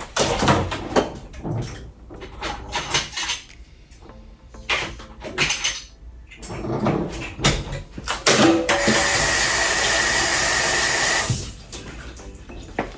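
A kitchen faucet runs for about two and a half seconds in the second half. Before it come scattered short knocks and clatter of kitchen work.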